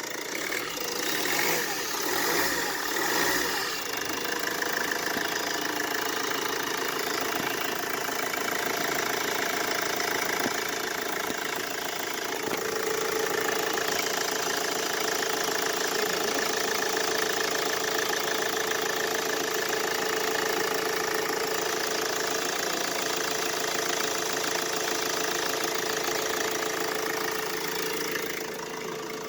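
Mercedes Vito W639's OM646 four-cylinder diesel idling steadily, its accessory belt routed past the air-conditioning compressor pulley. The squeal and rattle from the compressor mounting are no longer heard.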